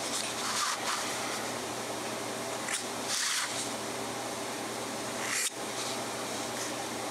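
The 14-karat gold nib of a Mabie Todd Swan 3220 fountain pen scratching across Rhodia paper in short strokes, twice in the first half, with a sharp click about five and a half seconds in. A steady hum runs underneath.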